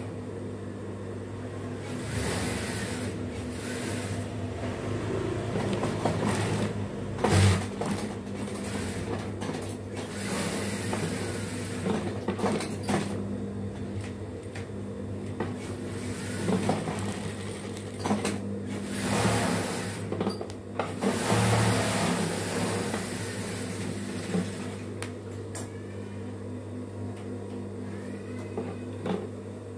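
Industrial sewing machine stitching fabric in several short runs with pauses between them, over a steady motor hum.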